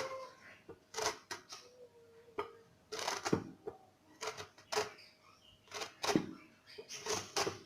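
Lemon rubbed against a fine metal grater: a dozen or so short scraping strokes at an uneven pace, zesting off only the yellow peel.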